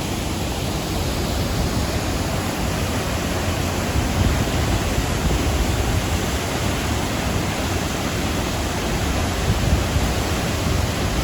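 Steady rushing noise of a large waterfall's falling water, Dudhsagar Falls in monsoon flow, filling every pitch with a heavy low rumble.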